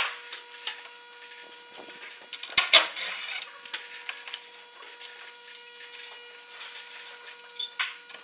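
Handling noises of a plastic control box being set against a plywood panel: scattered knocks, taps and scrapes, with a louder cluster of knocks about three seconds in.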